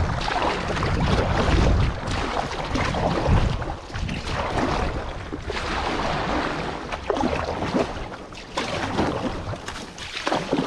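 Water rushing and splashing around a kayak carried along by a fast river current, with wind buffeting the microphone, strongest in the first couple of seconds.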